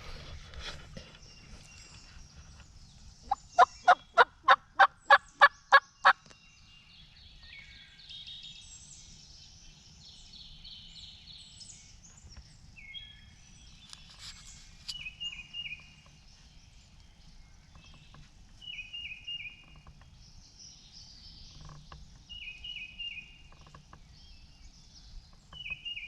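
A series of about nine loud, evenly spaced turkey yelps, about three a second for some three seconds, close by. They are typical of a hunter's hen-turkey call. Small birds chirp in short repeated phrases afterwards.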